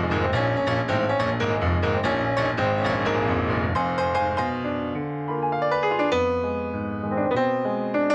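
Nord Piano 3 stage piano playing solo, with fast, evenly repeated notes for about the first four seconds, then slower, ringing chords over deep bass notes.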